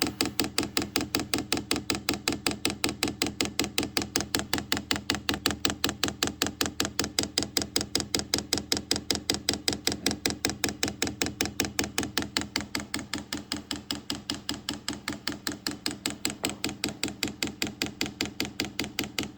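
Chinese diesel heater's fuel dosing pump clicking rapidly and evenly, about five clicks a second, in priming mode to draw diesel up the fuel line.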